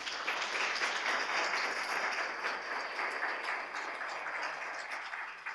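Audience applauding: many hands clapping in a dense, steady patter that eases off near the end.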